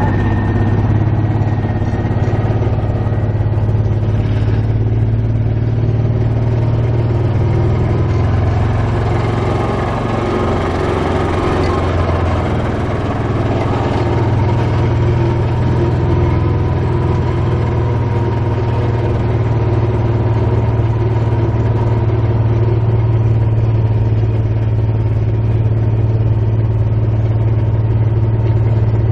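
Engine of a small utility vehicle running steadily as it drives along, a low, even hum.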